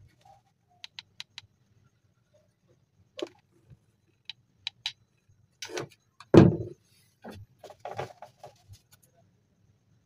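Corrugated cardboard handled in the hands: scattered light clicks and taps, with one louder thump a little past halfway.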